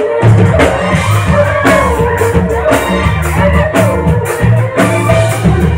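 A live band plays a Bihu song through loudspeakers: a woman singing over a drum kit and electric guitars, with a steady beat.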